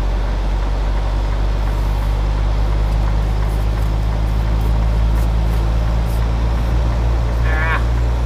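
Semi-truck diesel engine running at low revs with a steady low note while the tractor-trailer reverses slowly into a dock, heard from inside the cab; the engine grows a little louder in the second half.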